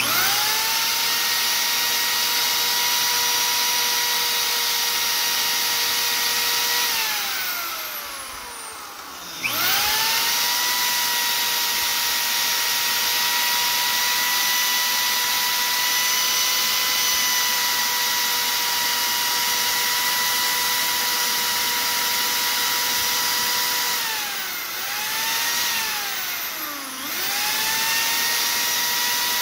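Electric drill spinning a Mopar 318 oil pump drive shaft while steel wool is pressed against it to polish out scoring: a steady high motor whine. The whine falls away as the drill is let off about seven seconds in, then rises back up a couple of seconds later. It falls away and restarts twice more near the end.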